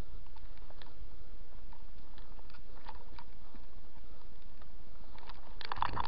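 Footsteps crackling through dry grass and brush: scattered light crackles, then a quick flurry of them near the end, over a steady low rumble.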